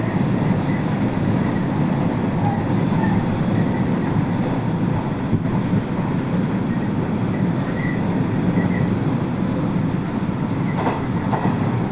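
Sanyo Electric Railway limited express train running at speed: a steady rumble of wheels on rails, with a few faint clicks near the end.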